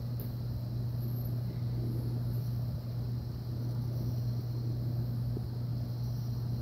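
A steady low mechanical hum with a light even hiss, unchanging throughout.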